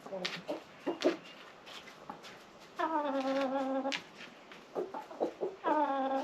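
Chickens clucking in their coop: short sharp clucks, with one long drawn-out call about three seconds in and another starting near the end.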